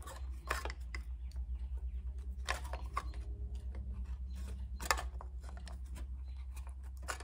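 Metal clicks and scraping as the flange of an old galvanized steel bilge-pump bracket is squeezed and bent flat with sheet-metal bending pliers, a few sharper clicks standing out, over a steady low hum.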